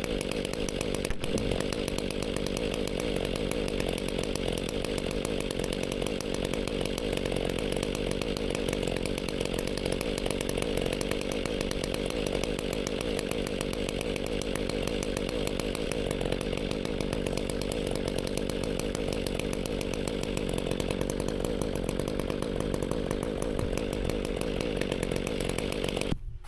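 Large two-stroke chainsaw running steadily at full throttle on a chainsaw mill, ripping lengthwise through an ash log; it cuts off suddenly just before the end as the cut finishes.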